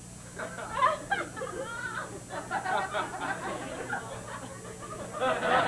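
Audience laughing: scattered chuckles and snickers that swell into louder general laughter near the end.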